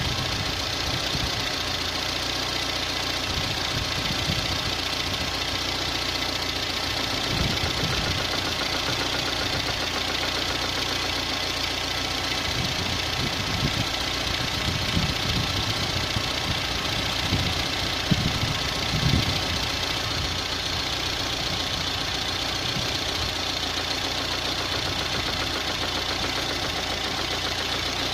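Car engine running with a steady knock from the camshaft, caused by axial (end) play of the camshaft. A few louder knocks stand out past the middle.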